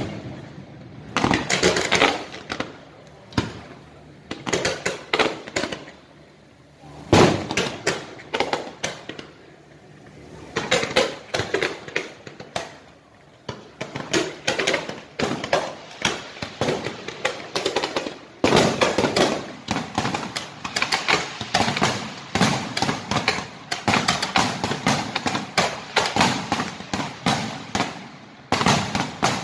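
Fireworks going off in rapid volleys of bangs and crackles. They come in clusters with short lulls in the first half and become an almost unbroken rattling crackle in the second half.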